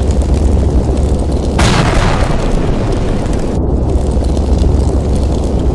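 Wind buffeting the microphone: a loud, steady low rumble, with a stronger, hissier gust from about a second and a half in to about three and a half seconds in.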